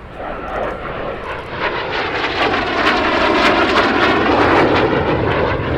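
Folland Gnat T.1's Bristol Siddeley Orpheus turbojet in a flypast, growing louder to a peak about three to four seconds in. It is a rushing jet noise whose pitch sweeps down and back up as the jet goes by.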